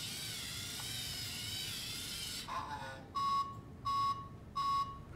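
LEGO Mindstorms EV3 robot's electric motors whirring as it turns to search, then three short, evenly spaced electronic beeps of about half a second each.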